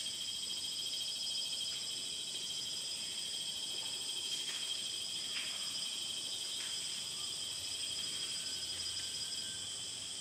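Steady shrill chorus of insects in several high bands, pulsing finely without a break, with a few faint clicks scattered through it.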